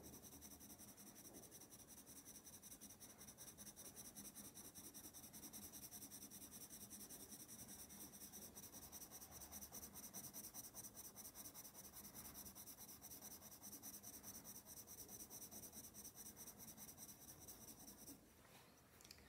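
Colored pencil scratching faintly on paper in quick, even back-and-forth shading strokes. It stops about a second before the end.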